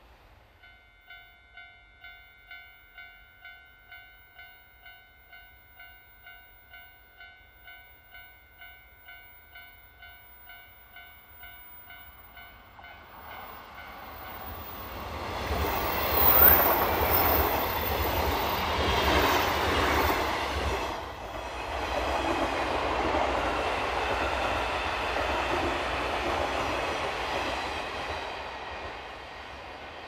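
Railway level-crossing warning bell ringing about twice a second. A red electric multiple-unit train then approaches and passes close by, loud for over ten seconds and drowning out the bell, before fading near the end.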